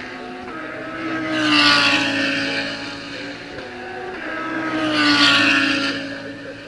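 Two GT3 race cars passing one after the other, about three and a half seconds apart. Each engine note swells as the car nears and drops in pitch as it goes by, with another engine running steadily underneath.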